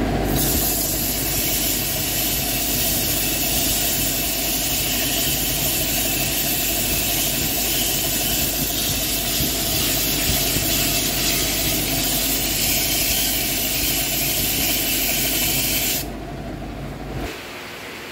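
Sandpaper held by hand against a freshly machined brake drum spinning in a metal lathe: a steady hiss over the hum of the running lathe. The sanding stops about 16 seconds in, and the lathe's hum stops about a second later.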